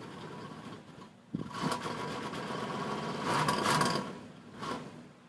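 1990 Cadillac's engine being cranked in a hard cold start, with a sudden louder spell from about a second in that fades out near the end. The owner blames the trouble starting on a badly faulty idle air control.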